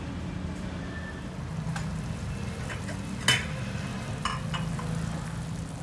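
Pot of pho broth boiling hard, a steady hissing bubble with a low rumble underneath. A sharp clink comes about three seconds in, and a fainter one about a second later.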